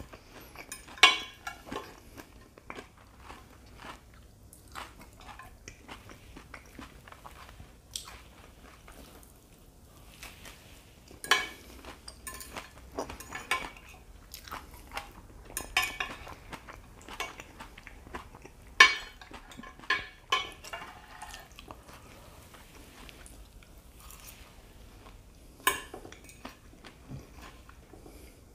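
Fork and knife clinking and scraping on a plate, a few sharp clinks standing out, with close chewing of a salad in between.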